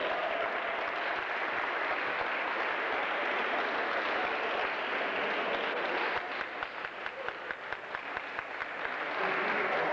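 Crowd applauding, dense at first, thinning about six seconds in to separate, distinct claps, then swelling again near the end.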